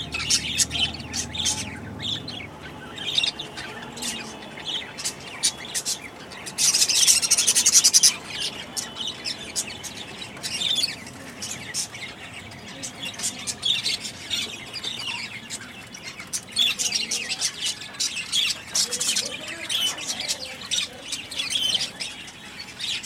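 Birds chirping and calling: a steady stream of short, high chirps, with a louder, noisier stretch of about a second and a half around seven seconds in.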